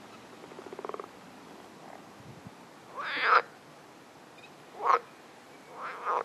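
Green water frogs croaking: a fast rattling croak in the first second, then three louder croaks about three, five and six seconds in.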